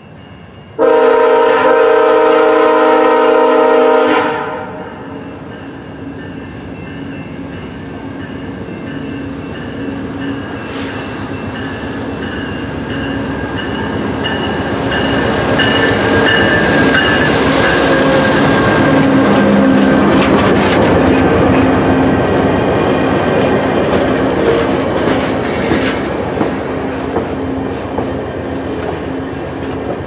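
A VIA Rail GE P42DC diesel locomotive sounds one long horn blast, about three seconds, starting about a second in. The train then passes at speed with its stainless steel passenger cars: engine and wheel clatter over the rail joints build to a peak midway and stay loud as the cars go by.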